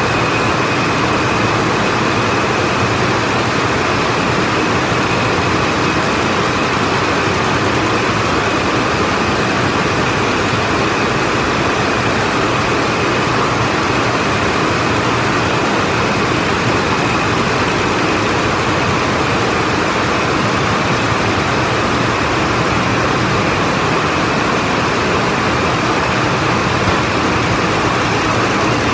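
Rows of water jet looms weaving at full speed: a loud, steady, dense mechanical noise from many machines at once, with a faint steady high tone above it.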